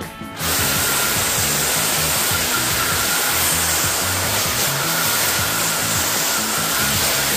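Handheld angle grinder with a brush wheel running against the wooden frame of an old sofa: a loud, steady hiss with a thin whine through it, starting about half a second in.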